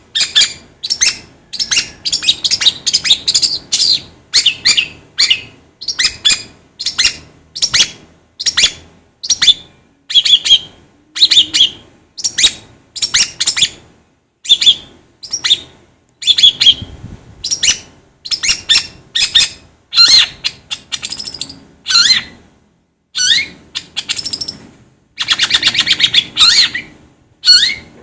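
Long-tailed shrike (cendet) singing: a run of short, sharp, high-pitched chattering phrases, roughly one a second, with a longer, denser phrase near the end.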